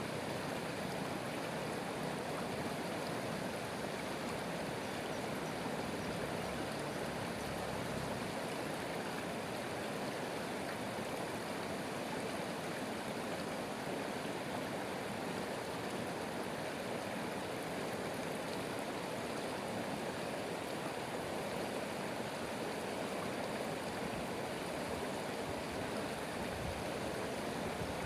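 A stream or river flowing steadily, an even rush of running water.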